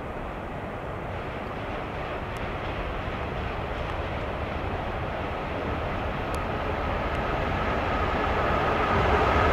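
Czech class 230 electric locomotive hauling a long freight train of open wagons, approaching: a steady rumble of wheels and running gear that grows louder throughout, with a higher-pitched tone coming in near the end.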